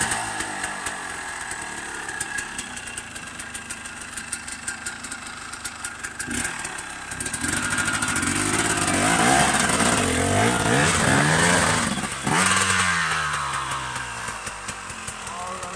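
KTM two-stroke enduro motorcycle engine running near idle, then revved up and down several times as the bike climbs a rocky slope, with a sharp knock about twelve seconds in before the revs fall away.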